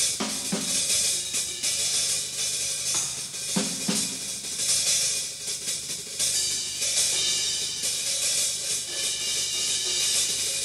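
Jazz drum kit solo: ride cymbals and hi-hat played in a dense, continuous wash, punctuated by a couple of drum strokes just after the start and another pair about three and a half seconds in.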